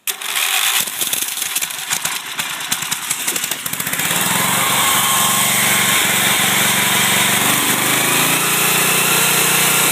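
Home-made generator's engine starting on a jump-started battery: it fires roughly and unevenly for about four seconds, then settles into a steady run.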